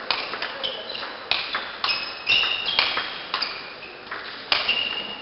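Table tennis rally: the ball clicking sharply off the bats and the table in quick succession, about a dozen hits, with short high squeaks between some of them.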